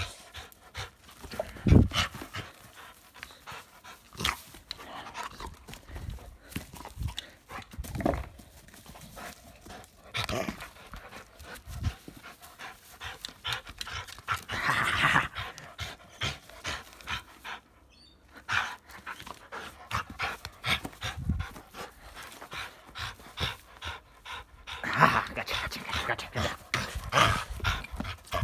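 Dog panting as it tugs at a plastic ring toy, with irregular knocks and scuffs. The panting grows louder about halfway through and again near the end.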